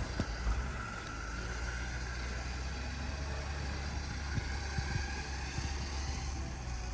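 Jeep engine idling steadily, with a few short low knocks.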